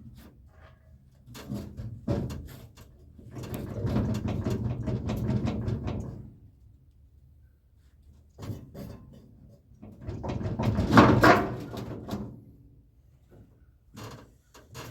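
Steel dump bed being dragged and shifted off a truck: two long scraping drags a few seconds apart, with scattered knocks and clanks between them.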